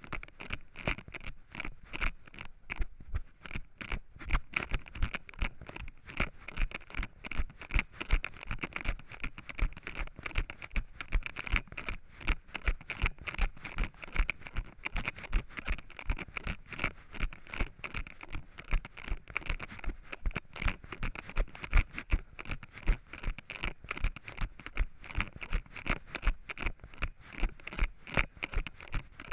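Running footsteps on a trail thick with dry fallen leaves, a regular beat of about three steps a second, each one rustling the leaves.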